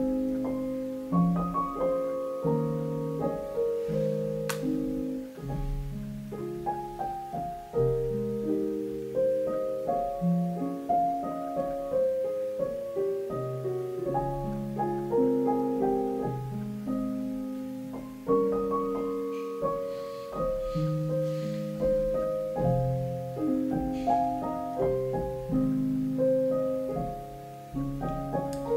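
Background piano music: a gentle melody of single notes and chords, each note struck and fading away.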